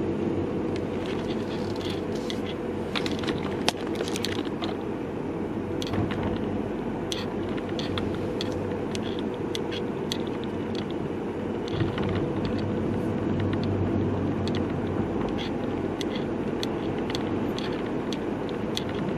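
Steady road and engine noise inside a moving car's cabin, with irregular small clicks and scrapes from the camera's hanging strap rubbing and knocking as the car drives.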